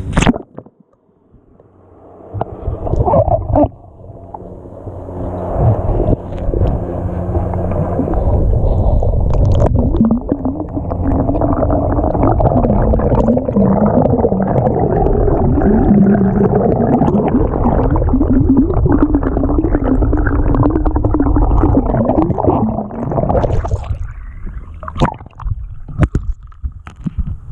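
Water heard through a GoPro camera dunked underwater on a tether: muffled low rumbling and gurgling with wavering tones. It eases off about three seconds before the end as the camera comes out of the water, followed by a few sharp knocks.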